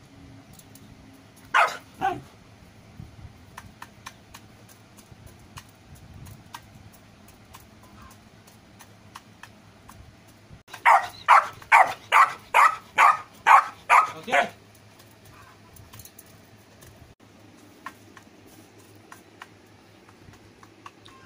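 Golden retriever puppy barking: two sharp barks about two seconds in, then a quick run of about ten barks, two or three a second, in the middle.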